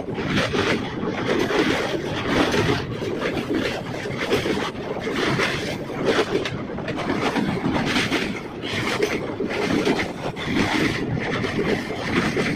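Express passenger train running at speed over a river bridge, heard from an open doorway: a steady rumble of wheels on rails with wind buffeting the microphone.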